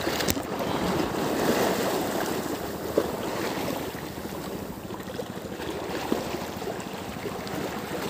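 Steady noise of wind and small waves lapping on open water, with wind buffeting the microphone.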